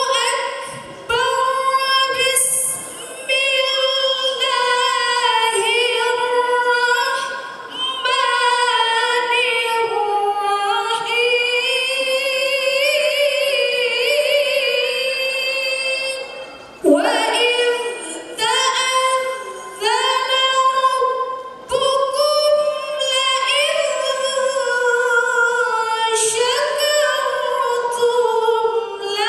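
A woman singing a slow melody into a microphone, with long held notes, one wavering passage, and short breaths between phrases.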